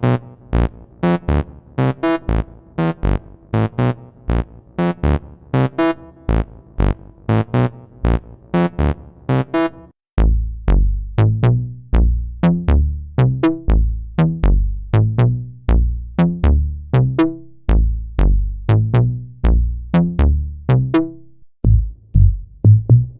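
MES Mini Red software synthesizer playing sequenced bass lines in fast, even notes. A short plucky pattern gives way, about ten seconds in, to a heavier pattern with deep sub notes, and a sparser pattern comes in near the end.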